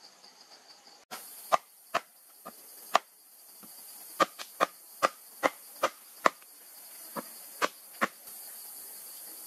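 About a dozen sharp strikes of a tool on wood, coming in uneven groups, over the steady high chirring of crickets.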